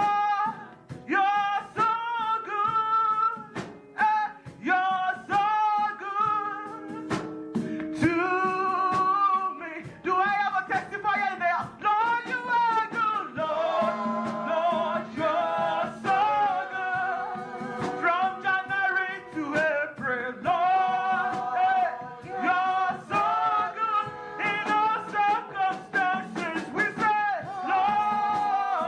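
Gospel praise singing: a lead voice with a wavering vibrato sings over live band accompaniment with regular percussion beats.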